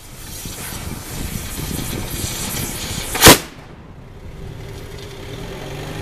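A firecracker going off with one sharp, loud bang about three seconds in, over a steady hiss. A vehicle engine comes in near the end.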